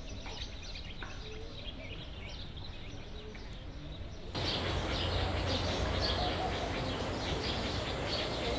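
Outdoor ambience of birds chirping. About four seconds in, it jumps louder to denser chirping over a low rumble.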